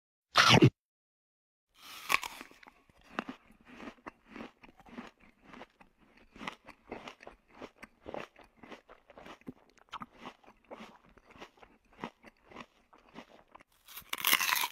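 Crunchy eating sound effect of fried food being bitten and chewed: one loud bite about half a second in, then steady chewing crunches about two to three a second, with a louder burst of crunching near the end.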